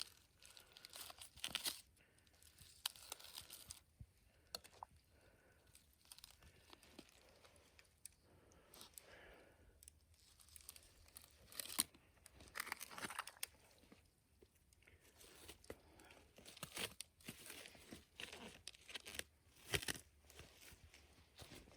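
A person eating: faint, irregular crunching and crinkling, with a couple of sharper crunches about halfway and near the end.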